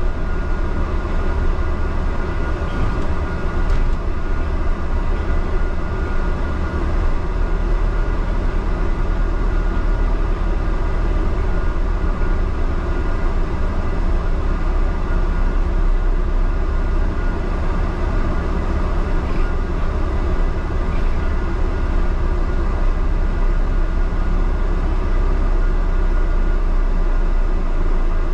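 Double-decker bus in motion, heard from inside on the upper deck: a steady low engine and road rumble with a faint steady whine above it.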